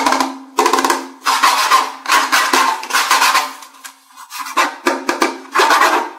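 Background music with quick percussive strokes, like drum and wood-block hits, over a steady held tone.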